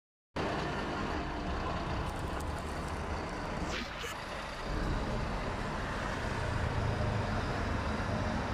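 Street traffic at a bus stop: a steady wash of vehicle noise, with a low engine rumble growing louder about halfway through as a heavy vehicle nears. A brief high sound falling in pitch is heard about four seconds in.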